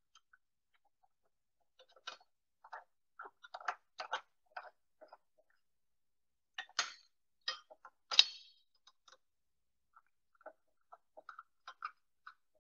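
Irregular small metallic clicks and ticks as screws are turned by hand with a small tool through a steel mounting plate into the sensor, with two sharper clicks about seven and eight seconds in.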